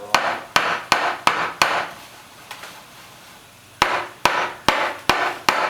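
Small steel milk pitcher of freshly steamed milk being tapped on the counter, two runs of about five sharp knocks with a pause between: knocking the big bubbles out of the foam.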